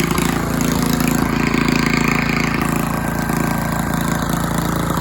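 Predator small engine running steadily at a constant speed.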